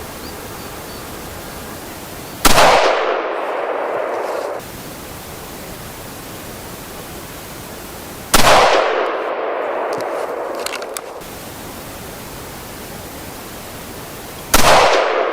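Three rifle shots from the .222 Remington barrel of a Valmet 412 combination gun, about six seconds apart, the last near the end. Each crack is followed by about two seconds of lingering noise. The shots are fired while zeroing the red-dot sight at 100 metres.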